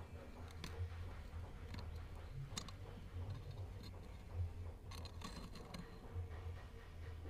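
Scattered light clicks and taps as a small brass piece is handled and worked by hand against a metal rod, a short cluster of them about five seconds in, over a low steady hum.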